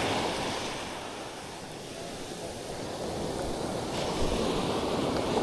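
Sea surf washing on the beach, with wind buffeting the microphone; the wash fades about a second in and swells again toward the end.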